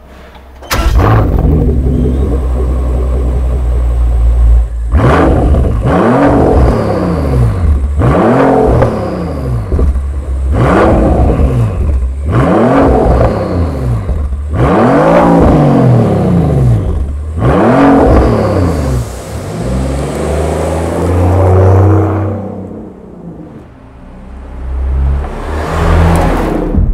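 Rolls-Royce Ghost's twin-turbo V12 with Mansory exhaust coming in abruptly about a second in and idling, then blipped about six times, each rev climbing and falling back, roughly every two seconds. Near the end the engine sound fades and swells again as the car drives past.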